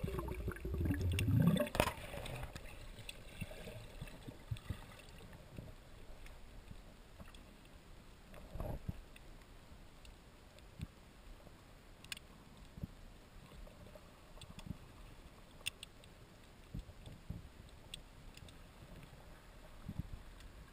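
Muffled underwater sound heard through a waterproof camera housing. A louder rush of moving water in the first two seconds rises in pitch, then settles to a low wash with scattered faint clicks and knocks.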